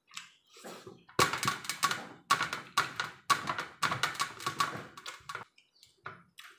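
Fingers scraping and tapping rice grains together on a metal plate, in a run of quick clicking strokes about once a second.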